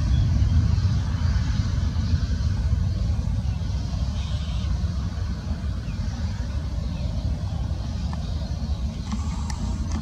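Twin-engine jet airliner's engines at takeoff thrust: a deep, steady rumble that eases slightly over the first few seconds as the aircraft lifts off and climbs away.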